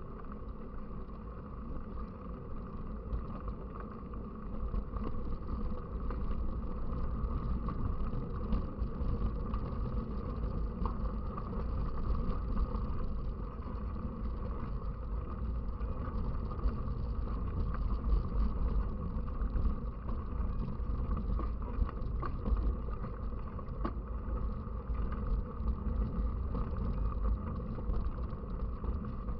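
Wind rushing over the microphone and steady rumble from a bicycle moving along, a continuous noise that swells and dips a little.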